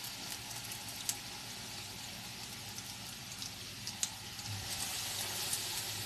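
Battered chicken pieces deep-frying in hot oil: a steady sizzle with scattered pops and crackles.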